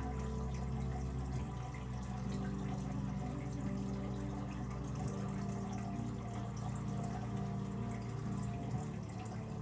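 Aquarium filter running: water trickling and splashing over a steady low motor hum.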